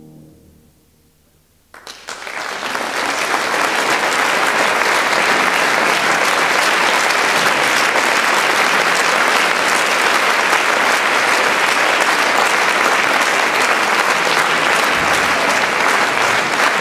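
A grand piano's last chord fades away, then audience applause starts suddenly about two seconds in and quickly builds to steady clapping.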